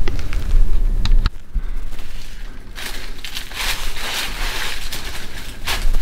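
A low rumble on the microphone that cuts off suddenly about a second in, then footsteps crunching through dry leaf litter in irregular bursts from about three seconds in.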